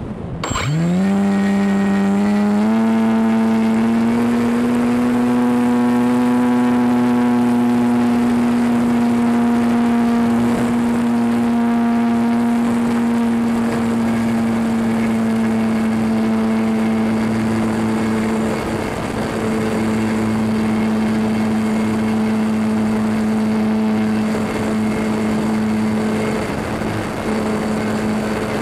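RC model plane's motor and propeller throttling up, heard from the camera on the airframe. The pitch rises quickly about a second in and steps up again shortly after, then holds a steady high-power drone through the climb.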